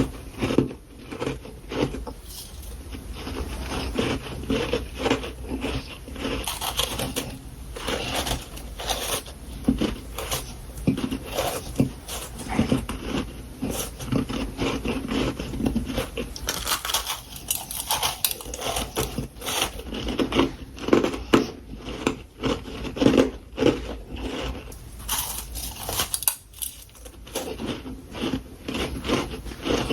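Close-miked biting and chewing of powdery freezer frost: a dense, uneven run of crisp crunches.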